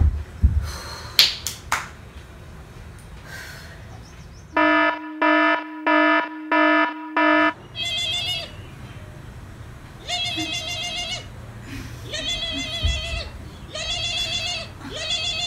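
Mobile phone ringing. First comes a run of five short evenly spaced beeps, then a warbling ring tone that repeats about every two seconds. A thump at the very start is the loudest sound.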